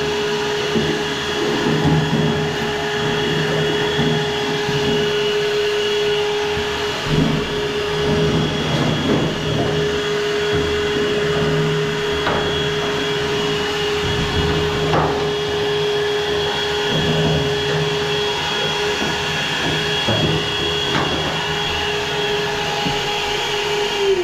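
Vacuum cleaner running with a steady motor whine. It is switched off at the end, its pitch falling as the motor winds down.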